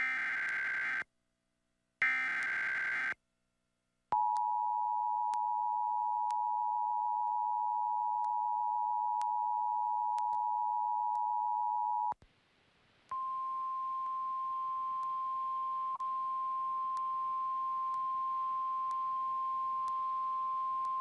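Emergency Alert System activation tones. It opens with the last two bursts of the SAME digital header, each a harsh warbling data burst about a second long. Next comes the two-tone attention signal, held steady for about eight seconds. After a short gap, a single steady NOAA Weather Radio warning alarm tone plays for about nine seconds.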